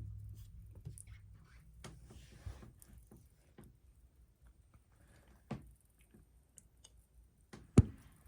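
Desktop PC running with its graphics card fans stopped: a faint low hum that fades away in the first couple of seconds, then near quiet broken by scattered clicks, the loudest a sharp click near the end.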